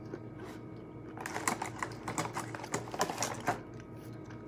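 Pistachio shells being cracked and prised open with the fingers: a quick run of small clicks and crackles starting about a second in and lasting about two and a half seconds.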